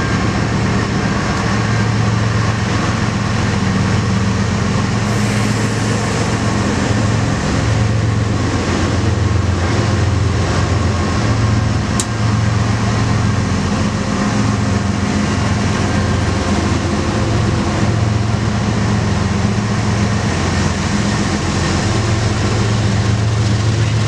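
BNSF GE ES44C4 diesel-electric locomotives passing close at speed: a steady, loud diesel engine drone with a slight pulse, mixed with the rushing noise of wheels on rail.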